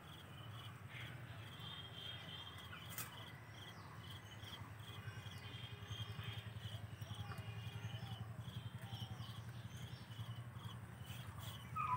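Quiet rural daytime ambience: insects chirping in short, repeated high pulses over a steady low hum.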